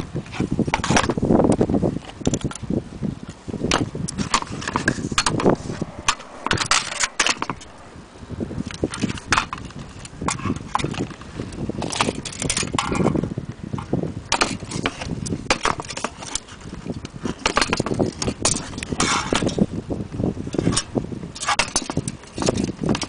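Brass clock bezels and their glasses clinking and knocking against each other as they are handled, in irregular clicks and rattles over a low background rumble.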